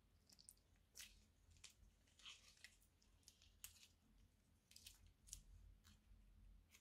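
Soft slime being squeezed out of a plastic piping bag: faint, irregular sticky crackles and little pops as it squishes out of the nozzle.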